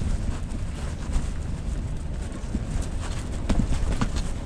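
Strong wind buffeting the microphone as a loud, steady low rumble, with a few scattered knocks about a second apart.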